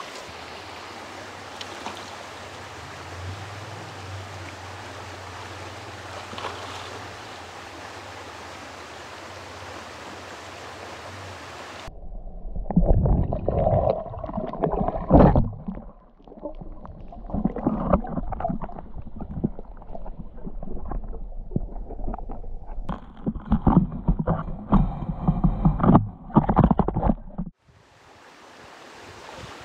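Steady rush of river water. About twelve seconds in it switches to muffled, irregular sloshing and knocks of water moving over a camera held underwater, louder than the river. This cuts off suddenly near the end.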